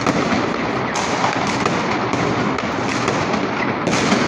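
Many fireworks going off at once: continuous crackling and popping, with sharper bangs about a second in and near the end.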